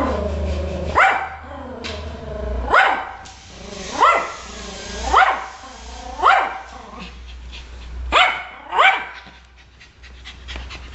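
Yorkshire terrier barking: about seven sharp, high barks roughly a second apart, the last two close together.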